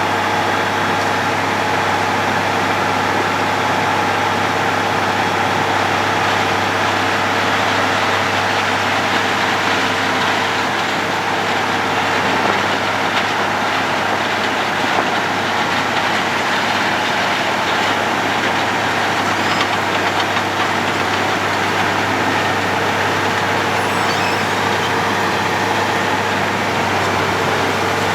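Road planer (cold milling machine) running steadily: a heavy engine drone under a dense, even noise.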